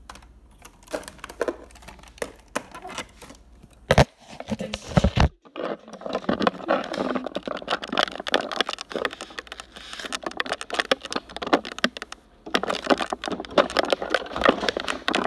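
Handling noise: dense crackling and rustling rubs on a covered microphone, with a sharp knock about four seconds in and another just after five seconds.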